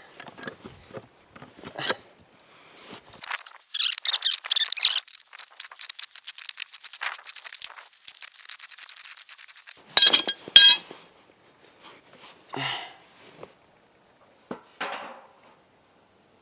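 Clinking and clattering of hard objects: a long run of small clicks and knocks, then a couple of sharp, louder impacts about ten seconds in, and a few scattered knocks after.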